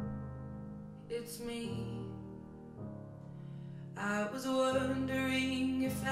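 Slow music with sustained bass notes and chords, growing fuller about four seconds in, played on a Bowers & Wilkins Formation Wedge wireless speaker as a listening demo.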